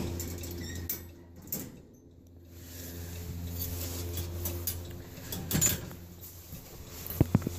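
A van's engine idling with a steady low hum, with a few sharp clicks and knocks near the end.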